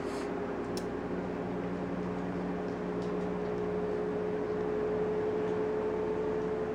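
Steady hum of a running appliance, holding one even pitch throughout, with a faint click just under a second in.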